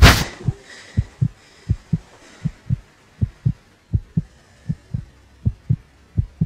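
Heartbeat sound effect: steady pairs of low thumps, lub-dub, a little under one pair a second. It opens with a single loud hit that dies away over about half a second.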